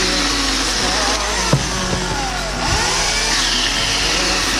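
Chainsaw running and revving under background music.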